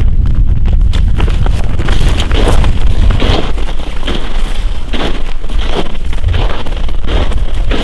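Wind buffeting the microphone in a heavy low rumble, with a series of short crunching strokes roughly once a second from about two seconds in.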